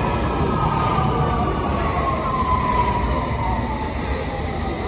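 London Underground S7 Stock train slowing into the platform: the whine of its traction motors falls steadily in pitch over a low rumble of wheels on rail.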